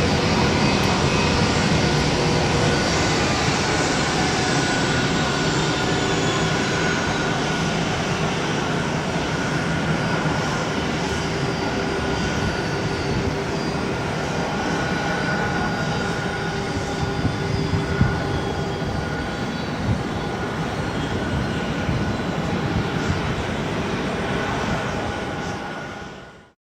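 Airbus A330-200 jet engines at take-off thrust: a steady roar with high whining tones, slowly getting a little quieter. It cuts off suddenly near the end.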